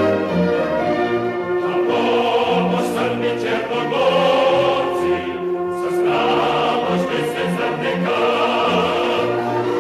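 Background music: a choir singing with orchestral accompaniment.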